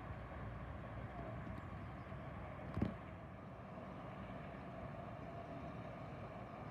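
Steady outdoor city background noise, like distant traffic, with one short knock nearly three seconds in.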